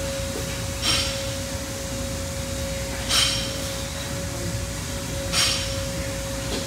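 A steady high-pitched hum runs throughout. Over it come short, hissing breaths about every two seconds, three in all, from a weightlifter bracing at the top of a barbell squat between reps.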